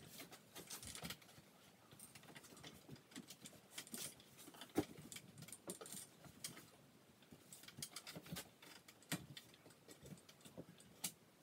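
Metal ball pull chains on a ceiling fan's light kit jingling and clicking irregularly as they swing.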